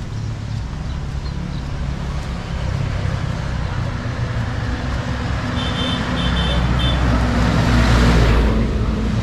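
Road traffic: vehicle engines running steadily, with a vehicle passing close near the end. Three short high beeps sound a little past halfway.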